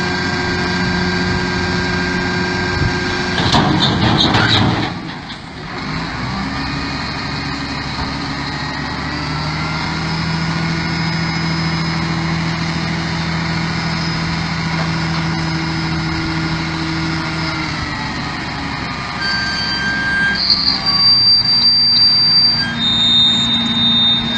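Heavy-equipment diesel engine running. A noisy break comes about four seconds in, the engine speeds up about nine seconds in and slows again about eighteen seconds in, and short high beeps sound near the end.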